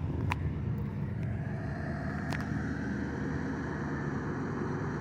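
Van engine idling with a steady low hum, heard from inside the cabin, with a couple of short clicks.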